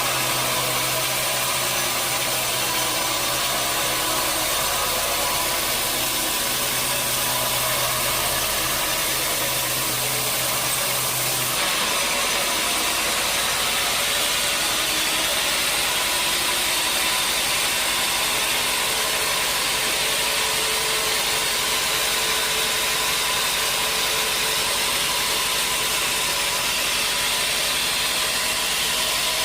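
Sawmill saw running steadily while sawing a large hardwood acacia log. About a third of the way in, a low hum drops out and the sound becomes brighter and more hissy.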